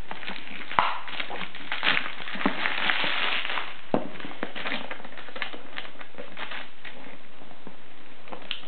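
Thin plastic courier mailer crinkling and rustling as hands pull it open around a box and handle the paper documents inside, with a denser stretch of crinkling in the middle and a few sharp clicks, the sharpest about a second in.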